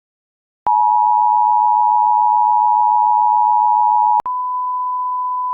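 Synthesized Emergency Alert System tones: after a short silence, the two-tone attention signal, two steady tones sounding together, plays for about three and a half seconds. It then switches with a click to a single steady tone, slightly quieter.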